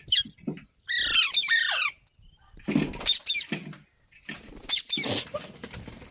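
Baby parrots squawking in about four bursts of harsh, quickly falling chirps, with short pauses between the bursts.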